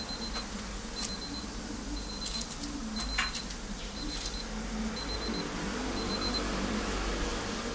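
A short high electronic beep repeating about once a second, which stops about six seconds in, over a steady kitchen hum. A few sharp metal scrapes and clicks, which fit the metal spatula working on the flat-top griddle as the egg-pancake batter is spread.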